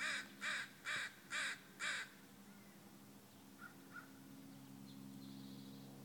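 A bird calling: five harsh calls in quick succession, about two a second, then stopping about two seconds in.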